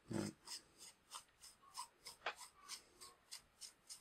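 Fingers twisting the front section of a Nikkor 50mm f/1.2 lens by hand: a faint, quick series of short dry rubbing strokes, about three a second, with one brief squeak about two seconds in.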